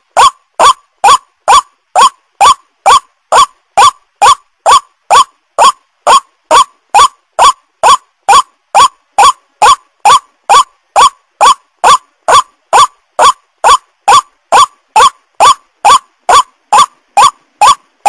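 White-breasted waterhen call, a bird-lure recording: a short, harsh note that sweeps sharply upward, repeated at an even pace of about two calls a second.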